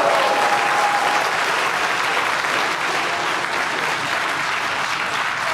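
Crowd applauding and cheering, a dense steady clatter of clapping that eases off slightly toward the end.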